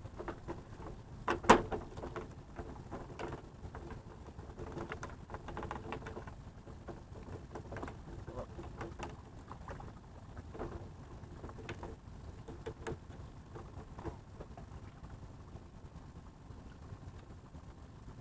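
Scattered knocks and clicks of fishing tackle handled on a bamboo platform as a fish is reeled in on a spinning rod, with one sharp knock about a second and a half in.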